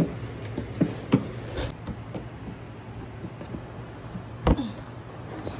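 Metal pole being fitted into the socket of a hollow plastic stand base, giving a handful of sharp knocks and clunks. The loudest is right at the start and another comes about four and a half seconds in, over a low steady hum.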